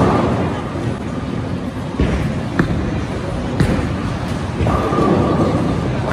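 Bowling alley noise: a steady rumble of balls rolling down the lanes under crowd chatter, with sharp clacks of balls hitting pins about two, two and a half and three and a half seconds in.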